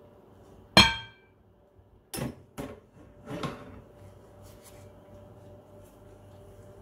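A sharp clink with a short ringing tone about a second in, as something strikes the glass mixing bowl, followed by a few duller knocks and scrapes of a spatula in the bowl as whipped egg whites are folded into batter. A faint steady hum lies underneath.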